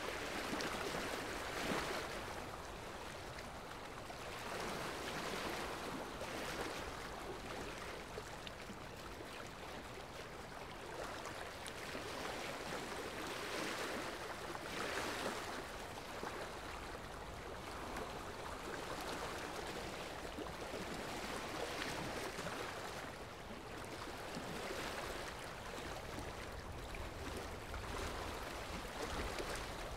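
Steady rushing noise of flowing water, like a stream, gently rising and easing in loudness.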